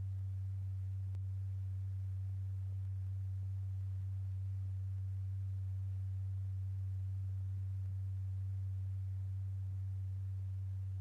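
A steady, low pure tone, unchanging in pitch and loudness, with faint overtones above it: the fixed-frequency test tone that sets a stretched paper diaphragm strewn with lycopodium powder vibrating.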